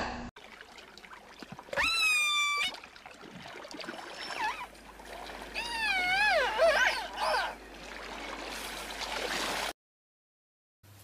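Killer whale calls over a watery hiss: one sharply rising, then held call about two seconds in, then a run of wavering up-and-down calls. The sound cuts off about a second before the end.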